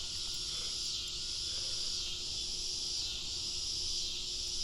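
Steady chorus of insects: a continuous high-pitched buzz that gently swells and fades.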